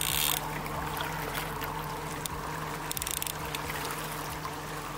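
Yamaha outboard motor running steadily at trolling speed, with water splashing and trickling at the stern. A brief hiss right at the start and a few light clicks about midway.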